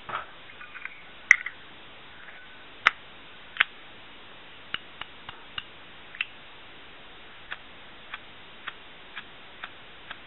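Metal clicks from a Zippo lighter being worked: a few loud clacks in the first four seconds, then a run of lighter ticks about two a second.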